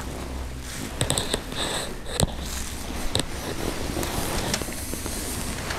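A person moving about on a debris-strewn floor: scattered footsteps and sharp clicks and knocks of handling over a steady hiss, the loudest knock about two seconds in.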